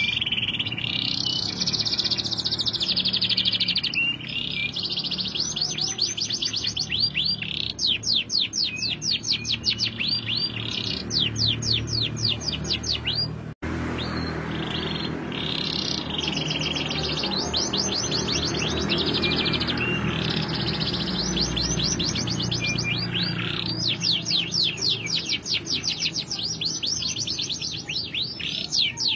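Domestic canary singing a long, unbroken song of rapid trills: runs of fast, evenly repeated sweeping notes that change from one run to the next. The sound cuts out for an instant about halfway through.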